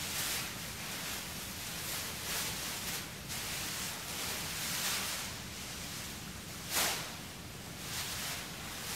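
Soft rustling in about six brief swells, the loudest a little before seven seconds in, over a steady background hiss.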